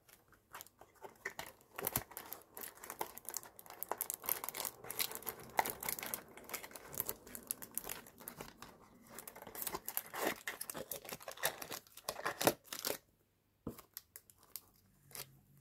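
Packaging wrap being handled and crinkled: a dense run of crackles that stops about 13 seconds in, followed by a few scattered clicks.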